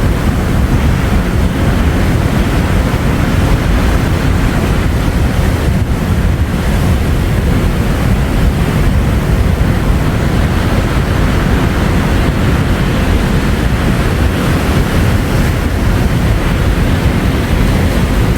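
Ocean waves on the shore: a steady, unbroken wash of surf, heaviest in the low end, with wind rumbling on the microphone.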